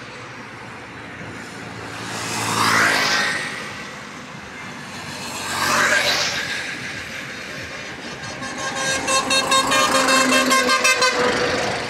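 Vehicles passing on a highway: two go by a few seconds apart, each swelling and fading. From about two thirds of the way in, a loaded goods truck passes close while a vehicle horn sounds in rapid pulses for about three seconds.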